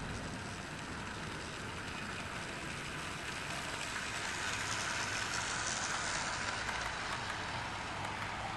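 OO gauge model train running past on garden track: the small electric motor whirring and the wheels clicking over the rails, louder in the middle as it passes.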